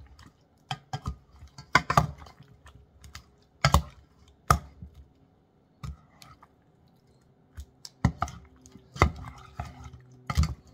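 Silicone-tipped metal tongs tossing bok choy in a stainless steel pot: irregular sharp clicks and knocks of the tongs against the pot and each other.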